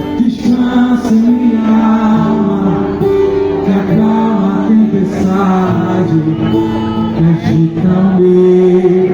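Gospel song: a singing voice holding long notes over steady instrumental backing.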